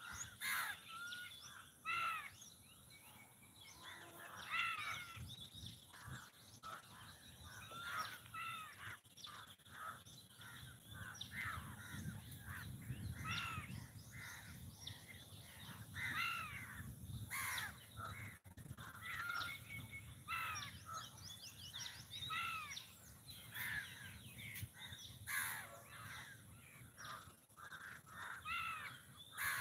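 Crows cawing over and over, short harsh calls repeating throughout, sometimes overlapping, with a faint low rumble in the background.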